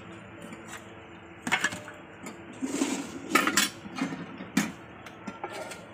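Stainless steel plates, a bowl and serving spoons handled while food is served: scattered clinks and knocks of dishware, with a short scrape about halfway through.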